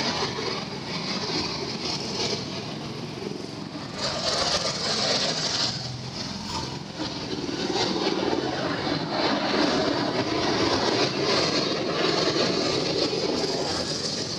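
Several go-kart engines running together in an indoor karting hall, a steady dense din that rises and falls in loudness.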